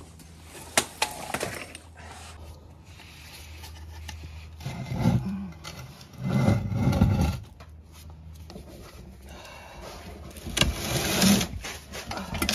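Handling noise under a car: a few sharp metal clicks as a floor jack is pushed away, then rough scraping and knocking in bursts as a bare manual transmission is dragged and turned on cardboard over a concrete floor.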